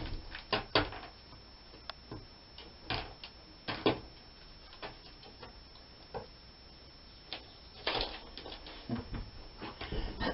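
Scattered light taps and clicks, spaced irregularly about a second apart, from a hen's toenails and beak on a plywood work table as she walks and pecks.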